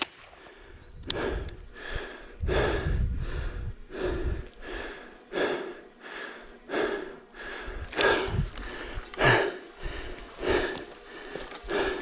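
A person panting hard after exertion, with quick, regular breaths about one and a half a second.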